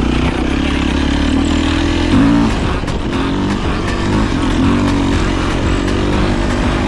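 Four-stroke 450cc dirt bike engine running under constantly changing throttle, its pitch rising and falling, with a sharp rev about two seconds in.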